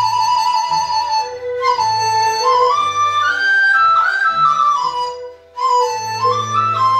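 Dizi (Chinese bamboo transverse flute) playing a stepping folk melody over low sustained accompaniment notes. It opens with a wavering held note and breaks off briefly a little after five seconds before the phrase resumes.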